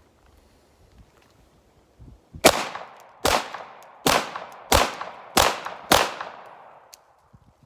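Six 9mm shots from a Glock 17 Gen 5 pistol, fired in quick succession about two thirds of a second apart, each followed by a short echo.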